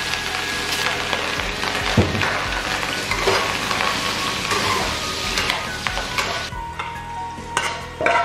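Long beans and pork sizzling in a hot wok while a metal spatula stirs them, with several sharp knocks of the spatula against the wok, the loudest about two seconds in. The sizzle thins about six and a half seconds in.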